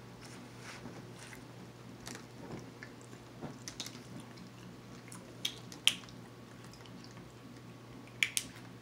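Quiet chewing with sharp clicks and crinkles of a plastic water bottle as its cap is twisted and the bottle handled, the loudest clicks about six seconds in and a quick pair near the end.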